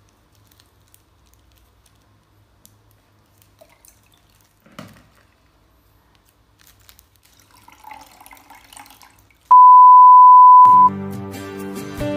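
Faint water splashes and handling clicks as a betta is poured from its plastic bag into a small glass tank. About nine and a half seconds in, a loud steady beep sounds for just over a second, and acoustic guitar music starts right after it.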